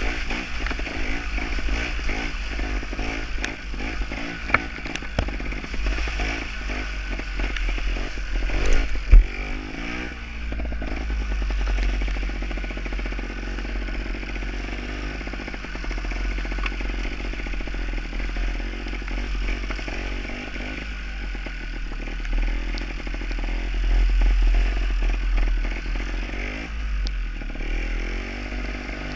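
Gas Gas TXT 270 two-stroke trials motorcycle being ridden, its engine pitch rising and falling with the throttle. Scattered knocks and rattles come through, with one loud knock about nine seconds in.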